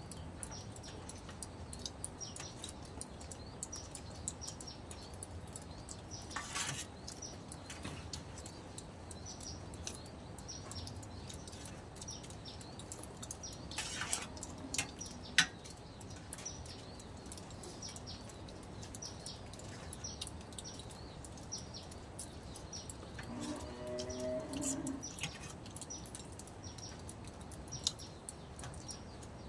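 Small birds chirping repeatedly over a quiet outdoor background, with a few sharp clinks of metal spoons against a steel serving pan as people eat, one of them much louder than the rest. A brief low call is heard once partway through.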